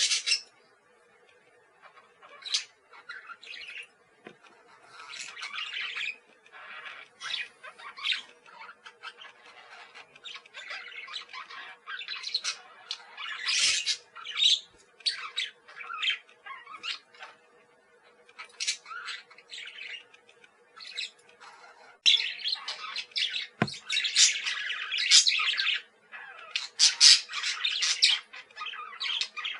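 A group of parakeets chattering: rapid short chirps and squawks, busiest and loudest in the last third, over a faint steady hum.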